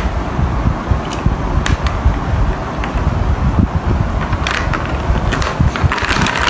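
Chess pieces clicking as they are set down and moved on a wooden chessboard, a few scattered clicks and then a quick run of them near the end, over a steady low rumbling noise.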